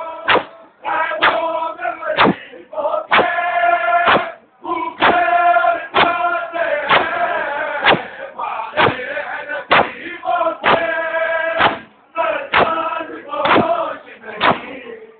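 A crowd of men chanting a mourning lament in unison while beating their chests in matam, the hand strikes landing together about once a second.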